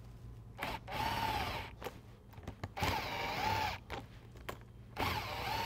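Power nut driver with a socket spinning nuts down onto the bolts of a bolt solid plate conveyor belt splice, in three short runs whose whine wavers in pitch, with short clicks between runs. This is the first pass that brings the nuts down until the plates sit flat against the belt.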